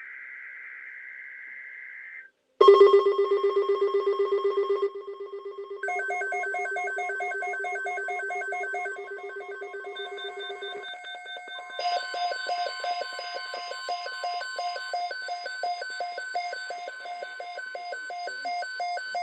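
A short buzzing burst of SAME digital header data, then several weather radio receivers sounding their alarms: layered electronic beeping at different pitches, pulsing rapidly. About twelve seconds in, the steady NOAA Weather Radio 1050 Hz alert tone joins under the beeping.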